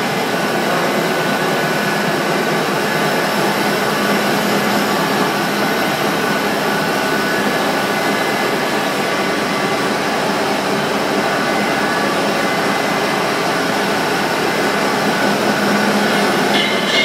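A dairy milk homogenizer machine running with a steady, loud mechanical whir that does not change, a faint hum running through it.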